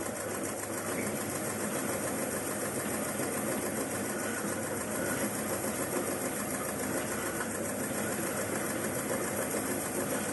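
Homemade oil-palm rib stripping machine running steadily, its rotating scraper stripping leaf off palm ribs as they are fed in.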